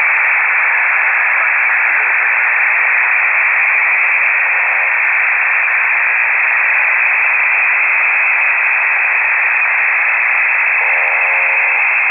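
Steady shortwave radio static and hiss from a KiwiSDR receiver tuned to an amateur-radio frequency, with no one transmitting speech. Near the end a brief pitched sound cuts through the hiss.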